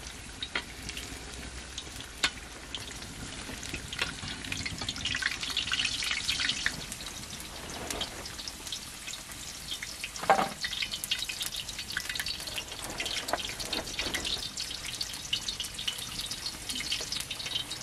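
Batter-dipped potato slices frying in hot oil in a wide shallow pan, sizzling and crackling steadily, with scattered clicks of the metal spatula and skimmer turning them. A louder knock comes about ten seconds in.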